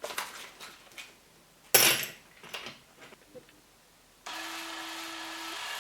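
A few handling clicks and one sharp knock, then from about four seconds in the DeWalt DCD790 brushless drill's motor runs with a steady hum. Its pitch steps up slightly near the end.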